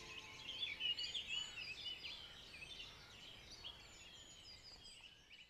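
Faint dawn chorus: many small songbirds singing at once in quick overlapping chirps and trills, thinning out and fading toward the end.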